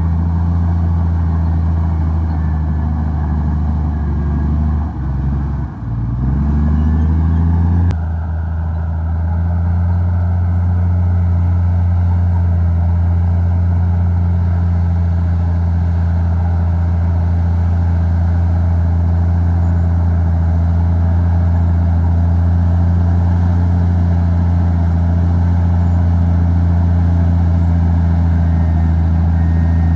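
Komatsu D58E bulldozer's diesel engine running steadily. About five seconds in, its note sags and dips, then climbs back up and steadies.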